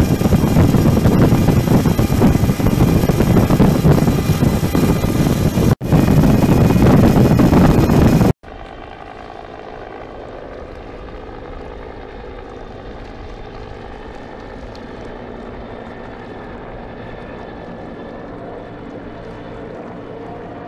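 Twin outboard motors running flat out, heard from on board with a loud rush of spray and wind, broken by a brief dropout and cut off at about eight seconds. After that comes a much quieter, duller steady drone of offshore racing powerboat engines heard from shore.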